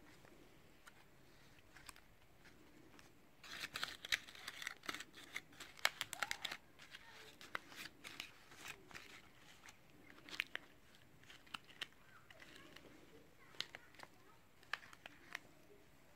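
Paper crinkling and rustling as fingers handle and fluff the cut-paper fringe of a paper puppet: a busy flurry of small crackles a few seconds in, then scattered single crackles.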